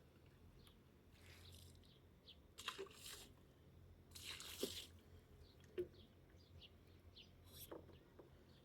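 Very faint outdoor ambience: scattered short bird chirps, with a few soft rustling or scraping noises, the loudest about three and four and a half seconds in.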